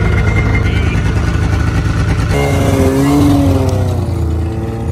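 Arctic Cat 600 snowmobile's two-stroke engine running, being broken in gently after a top-end rebuild with new cylinders, pistons and power valves. A little over halfway through the sound changes and the engine note slowly falls in pitch as the sled eases off.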